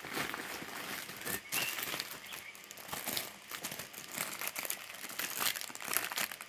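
Packaging crinkling and rustling as it is handled and opened by hand, with many small crackles.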